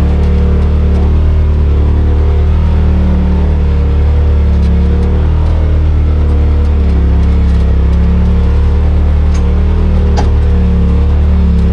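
Side-by-side UTV engine running under load while driving a trail, its pitch rising and falling slightly with the throttle. A couple of faint clicks near the end.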